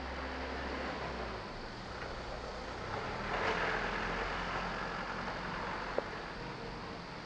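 Small flatbed truck driving past, its engine and tyre noise swelling about halfway through and then fading, with one short click about six seconds in.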